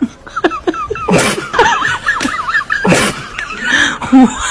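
Laughter: short high squeaky giggles with two loud breathy bursts, about one second and about three seconds in.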